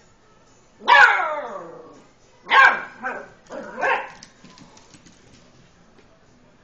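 Beagle puppy barking: one long bark that slides down in pitch, then a quick run of three shorter barks.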